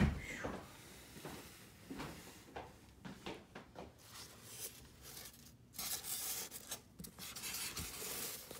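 Packaging rustling and scraping, with light knocks, as pieces are handled and lifted out of a box. The longest rustles come in the second half.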